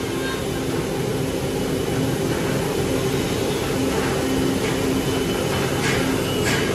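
Woodmaster WM-4X4CNC four-spindle CNC wood router running with a steady hum. From about four seconds in come several short hisses of compressed air as its automatic tool changer swaps the cutters on the spindles.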